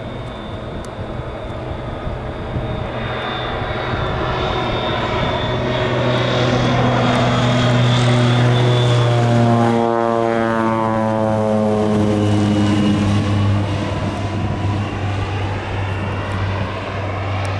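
Air Tractor AT-502's PT6A turboprop at climb power, passing low overhead. The propeller and engine hum grows to its loudest about eight to ten seconds in, drops sharply in pitch as the plane goes by, then trails off as it climbs away.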